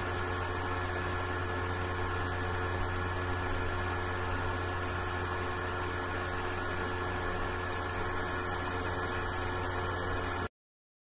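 A steady machine-like hum with hiss: a low drone under a few constant tones, even in level, cutting off abruptly near the end.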